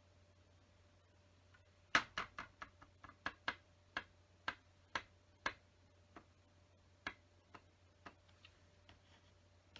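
Small hard plastic LEGO pieces clicking and tapping as they are handled and placed, a run of sharp ticks that starts about two seconds in, comes quickly for a few seconds, then thins out to single clicks.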